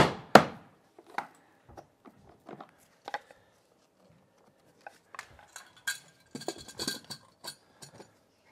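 Hammer blows driving a floor outlet box into its hole in the floor: two sharp strikes right at the start, then a few lighter knocks. After a short pause, small metallic clicks and clinks as tools and the box are handled.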